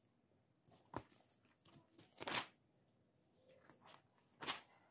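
Paper being handled: loose drawing sheets and a drawing book's pages rustling as they are moved and turned, in three short rustles about a second in, a little past two seconds and near the end.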